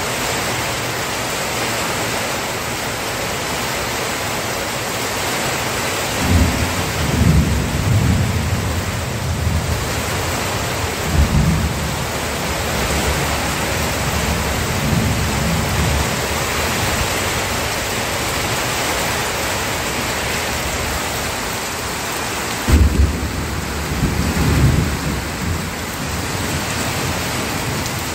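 Steady rain with thunder rumbling in slow rolls, the first starting about six seconds in and another about twenty-three seconds in.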